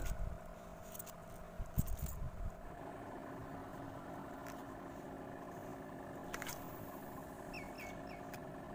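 Spinning rod and reel being handled: a few light clicks and knocks over the first couple of seconds. Then a steady low engine hum sets in and holds.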